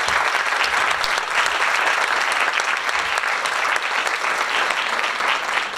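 Audience applauding steadily: many people clapping at once.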